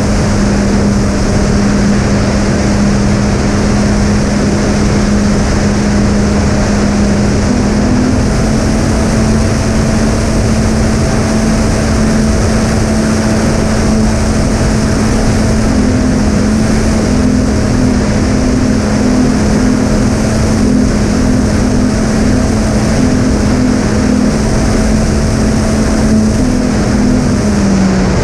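Twin brushless electric motors with three-blade props running at cruise throttle, a steady drone over a constant rush of airflow. The pitch steps up slightly about eight seconds in and drops back near the end as the throttle changes.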